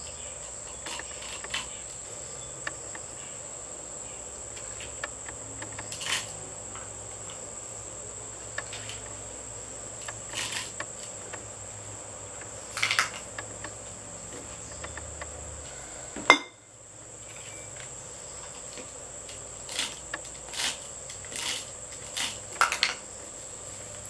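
Utility knife cutting and picking copper magnet wire out of a small microwave motor's winding: scattered light clicks and snaps, the sharpest about sixteen seconds in. Under it runs a steady high insect trill.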